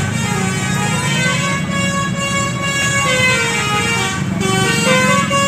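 Indonesian 'telolet' bus horn, a multi-tone musical horn, playing a melody of held notes that step up and down in pitch. The bus's engine runs underneath as a steady low rumble.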